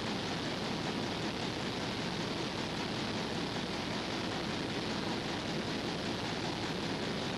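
Steady, even hiss with no distinct knocks or tool clicks: a noise floor rather than any sound of the work being done.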